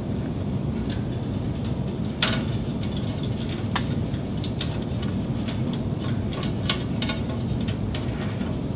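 Scattered light clicks and taps as a plastic tie wrap is threaded through the fiber chassis blade and the cable tails are handled, over a steady low rumble.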